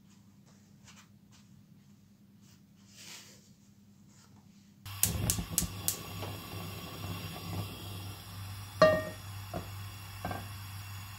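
Faint rustling of a cloth towel being patted over raw potato sticks. Then a few quick sharp clicks as a gas hob burner is lit, followed by the burner's steady low hum. About two thirds of the way in, a metal pan is set down on the burner grate with a loud ringing clang, and a lighter knock follows.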